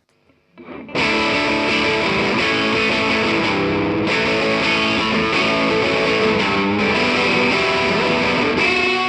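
Electric guitar played through distortion, coming in loud about a second in and holding a dense, steady level.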